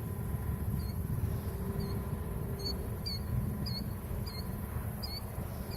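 Steady low rumble with a faint, high, short squeak or chirp repeating roughly every half second to second.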